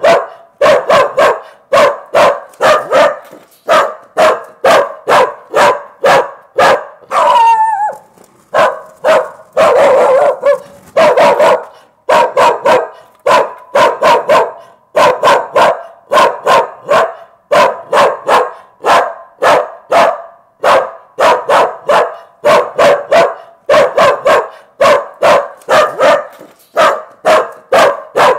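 A dog barking very loudly and rapidly, about two barks a second. A short whine falls in pitch about seven seconds in, and one longer, held call comes around ten seconds.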